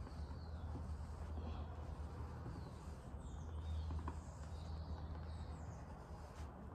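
Small oxy-acetylene torch flame burning steadily with a low rumble as it melts sheet lead and filler stick into a weld seam. Faint bird chirps come through in the background.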